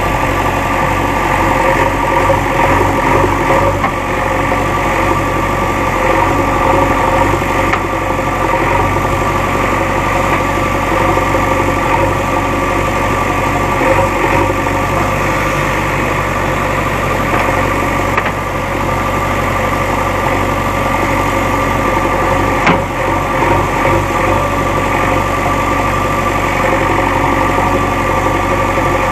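JCB backhoe loader's diesel engine running steadily, with a single sharp knock about three-quarters of the way in.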